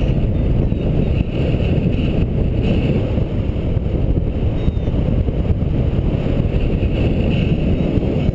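Steady rushing wind buffeting the camera's microphone as the paraglider flies.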